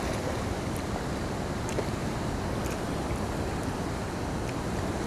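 Steady rushing of water pouring over a spillway, with a few faint high ticks.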